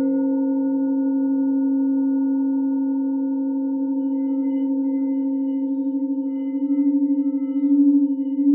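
Singing bowls ringing in a long sustained hum with a slow, regular wavering. The tone swells louder near the end, as if a bowl is being played again.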